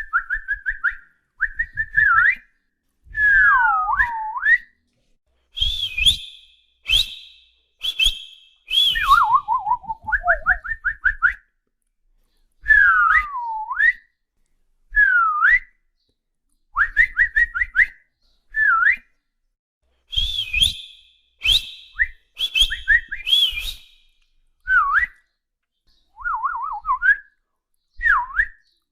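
Whistling in short phrases with pauses between them: quick warbling trills, swooping falls and rises in pitch, and a few higher, harsher squeaky notes.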